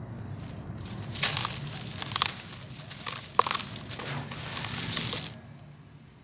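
Hands grabbing and crumbling dry, gritty powder with small clumps, giving a series of crunchy, sandy rustles with one sharper crunch about three and a half seconds in. The crumbling stops near the end.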